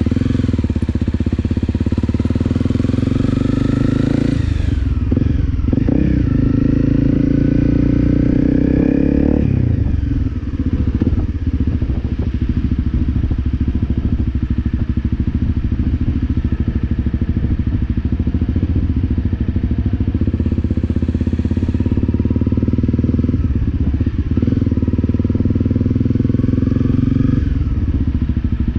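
Honda CRF250L's single-cylinder four-stroke engine running under way. The revs climb twice in the first ten seconds, with a gear change between, then hold steady while cruising, and rise again near the end.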